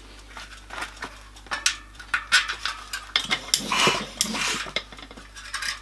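A bicycle tyre being worked by hand on a spoked wheel's rim, its inner tube pulled out: scattered clicks and knocks of the rim and tyre. About three and a half seconds in comes a longer scraping rub of rubber against the rim.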